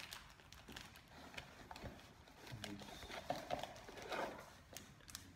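Hands handling a cardboard camera box and its inner flaps and packing: light scattered taps and clicks, with a stretch of rustling about three to four seconds in.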